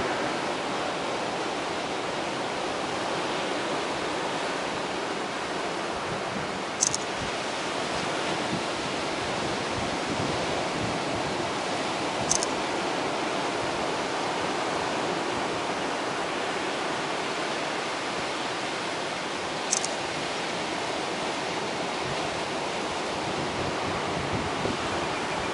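Ocean surf washing steadily onto a rocky shore as the waves roll in and break. Three brief high-pitched sounds cut through it, several seconds apart.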